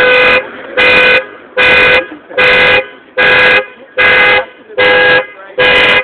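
Car alarm sounding a Toyota minivan's horn in a steady pulse of short, identical honks, a little more than one a second. The alarm has been set off on purpose to drown out a protest.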